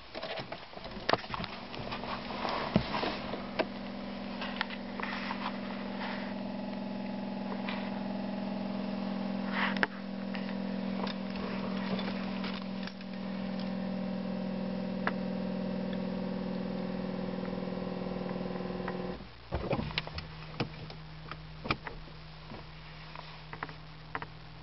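Inside a Volkswagen Lupo 3L with the ignition on and the glow-plug lamp lit before a cold start, a small electric motor hums steadily. About nineteen seconds in it stops abruptly, leaving a fainter, lower hum and a few light clicks.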